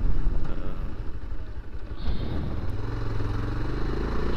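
Motorcycle engine running as the bike is ridden along, with a steadier engine note settling in during the second half.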